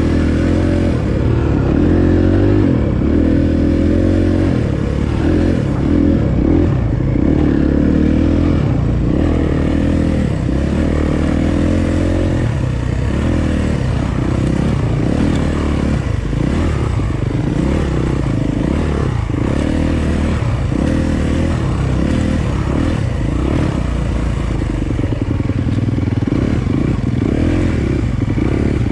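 Dirt bike engine running while riding a single-track trail, its pitch rising and falling with the throttle, with frequent knocks and rattles from the rough ground.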